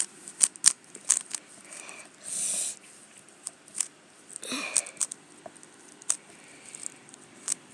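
Magnetic Valk 3 Power M speedcube being turned quickly by hand during a solve: irregular sharp clicks and clacks of the layers snapping into place. Two short hissing rushes come about two seconds in and again about four and a half seconds in.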